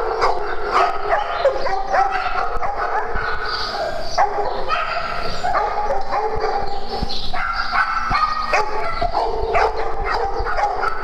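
A group of dogs barking, yipping and whining over one another in a steady, unbroken din.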